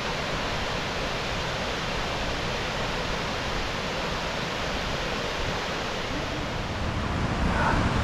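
Steady rush of water from Fukuroda Falls, an even noise growing slightly louder near the end.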